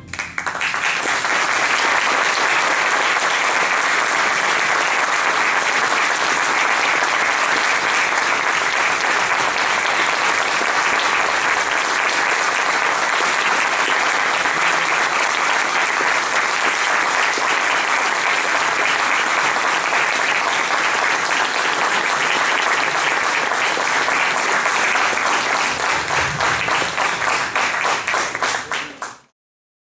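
Audience applauding steadily just after a concert band piece ends, the clapping becoming a little more uneven near the end before it cuts off suddenly.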